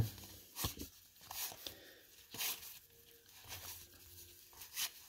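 Cardboard 1986 Topps baseball cards slid one at a time off a stack from hand to hand: faint, irregular flicks and rustles about every half second.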